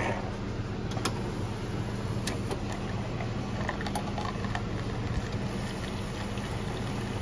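Schaerer Coffee Soul automatic coffee machine running, its pump giving a steady low hum as it dispenses milk and then coffee from its spout into a paper cup, with a few short clicks in the first couple of seconds.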